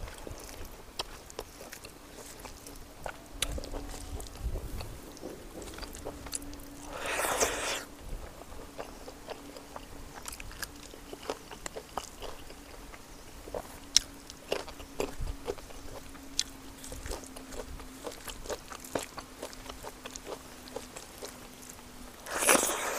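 Close-miked eating by hand: chewing and mouth clicks as a woman eats curried pork and rice, with small clicks scattered throughout. Two longer hissy rushes come about seven seconds in and near the end, over a faint steady hum.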